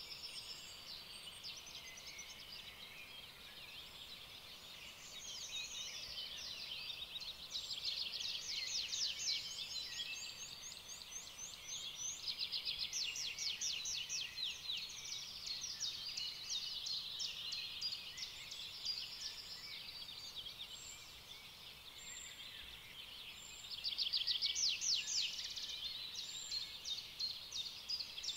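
Several birds singing at once in rapid, overlapping trills and chirps. The chorus swells in the middle stretch and again a little before the end.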